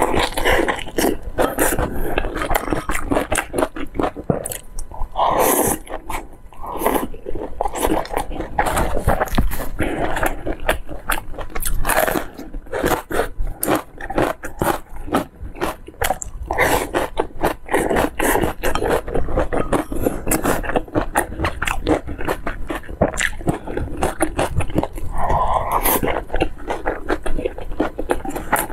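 Close-miked chewing of soft steamed meat-filled dumplings: many quick wet mouth clicks and smacks with bites, kept up without pause.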